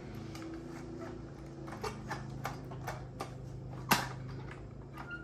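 A series of small clicks and knocks as a circuit board is worked out of the guide rails of a class D car amplifier's heatsink chassis, with one sharper knock about four seconds in, over a steady low hum.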